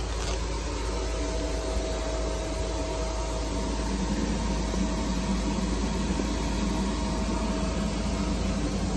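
Electric air blower running steadily, keeping the inflatable bounce house inflated: a constant rushing hum.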